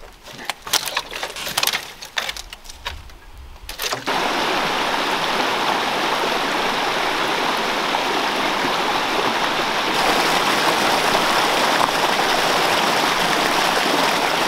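Brush and twigs crackling and snapping for the first few seconds. Then a small creek splashes steadily over low rock ledges, a little louder from about ten seconds in.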